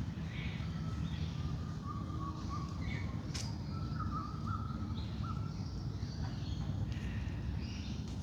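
Wild birds calling in a dawn chorus: many short calls and whistles overlapping, over a steady low rumble.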